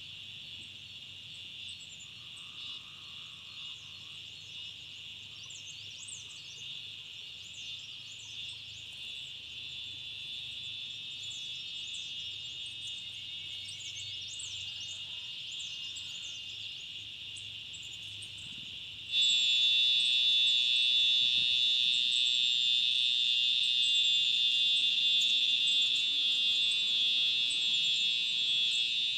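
Steady high-pitched drone of insects, with faint quick high chirps over it. About two-thirds of the way through the drone suddenly becomes much louder and stays that way.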